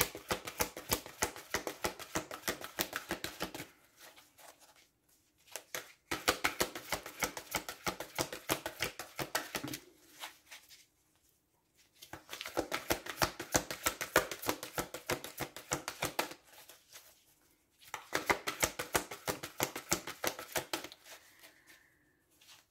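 A deck of oracle cards shuffled by hand: four bouts of rapid card flicking, each about four seconds long, with short pauses between.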